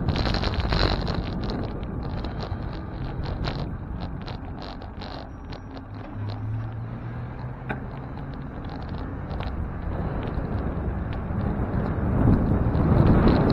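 Wind buffeting the microphone of a camera riding on a moving bicycle, with road and traffic noise underneath; it eases off in the middle and picks up again near the end.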